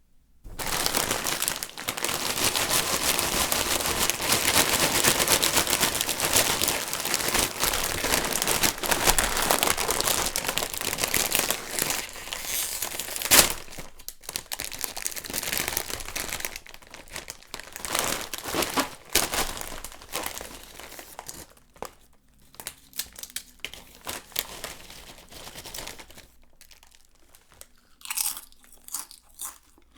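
A Lay's potato chip bag being crinkled and opened: dense, continuous crackling of the stiff foil-lined plastic, with one sharp, loud crackle about halfway through, then slower, sparser crinkles that thin out toward the end.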